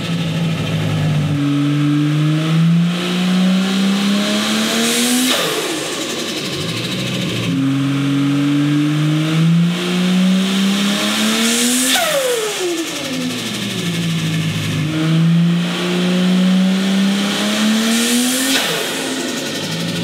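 Turbocharged Holden VL's RB30 straight-six revving three times, the pitch climbing for a few seconds each time. Each climb ends a little over five, twelve and eighteen seconds in with a sudden lift off the throttle and a falling sweep in pitch, where the turbo dose (compressor-surge flutter) is let out through a dose pipe.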